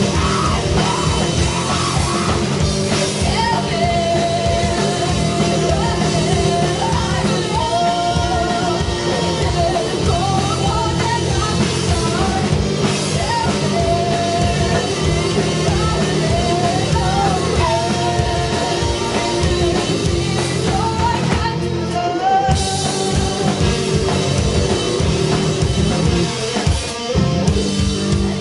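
A live rock band playing loud, hard-driving music with drum kit, bass and electric guitars, a woman singing over it from a few seconds in.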